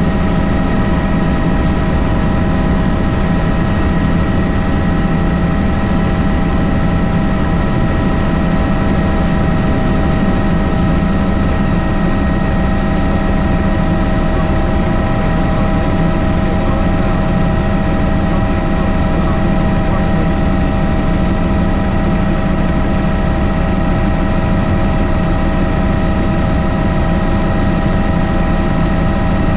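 Helicopter in steady flight, running loud and even: a high steady turbine whine over the low drone of the rotor, with no change in pitch or level.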